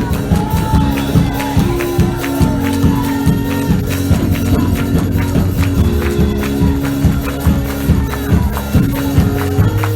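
Church band playing an upbeat praise break: a fast, steady beat of drums and tambourine over sustained bass and chords.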